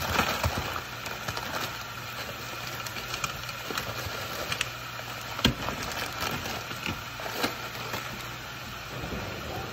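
Plastic zip-top bag of frozen peas crinkling and rustling as it is opened and peas are shaken out, with scattered small clicks, over a steady mechanical hum.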